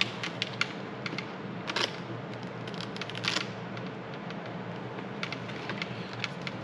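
Small clicks, taps and fabric rustling from hands working an HJC RPHA 70 helmet's padded liner and tucking a headset wire inside it, with two short scraping rustles about two and three seconds in.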